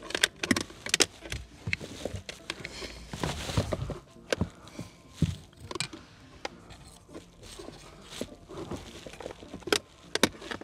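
Handling noise: scattered clicks, taps and rubbing, with a denser rustle about three seconds in, as the thin plastic hose of a foam air-conditioning cleaner is worked into a car's air-conditioning system.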